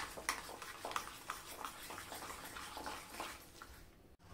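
A steel spoon stirring a thick semolina, curd and green-pea batter in a bowl: faint, irregular soft clicks and scrapes against the bowl.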